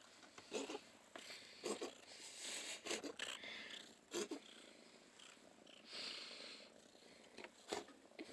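A young domestic cat purring softly, with faint pulses about once a second.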